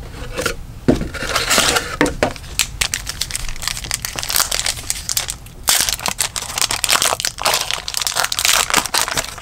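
A trading-card pack's wrapper being torn open and crinkled by hand: dense, irregular crackling with a sharp snap about a second in, going on for several seconds.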